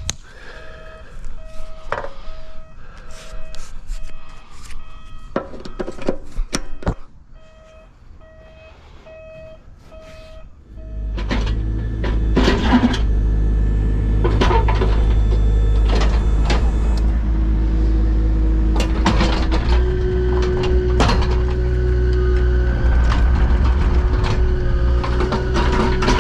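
A repeating beep and scattered metal clicks, then about eleven seconds in a heavy diesel earthmoving machine's engine starts and runs loud and steady, with clanks from the working machine.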